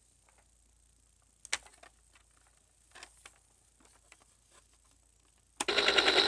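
A few faint plastic clicks, then near the end a loud electronic sound starts from the VTech Explore and Learn Helicopter toy's speaker: a buzzy tone pulsing rapidly.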